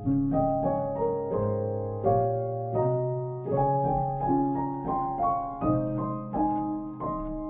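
Background piano music: a gentle, unhurried run of piano notes, about two or three struck each second, each ringing and fading before the next.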